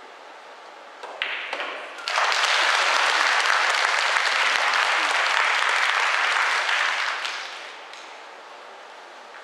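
Audience applause for a won rack of nine-ball: a first smattering of clapping about a second in, full applause from about two seconds, fading out near eight seconds.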